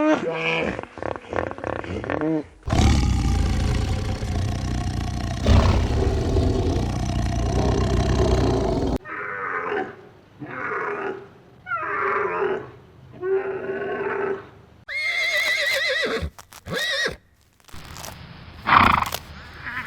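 Several different farm animals calling in turn, edited one after another. A long, loud, rough call runs for several seconds, then comes a run of about five short calls, then high wavering calls near the end.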